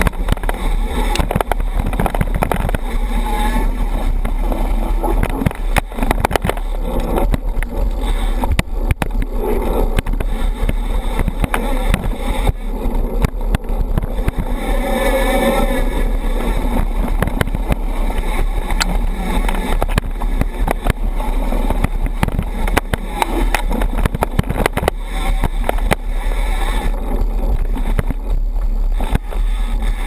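Mountain bike ridden fast over dirt singletrack, heard from a camera mounted by the front wheel: a steady wind rumble on the microphone, tyre noise, and constant rattling and knocking of the bike over bumps.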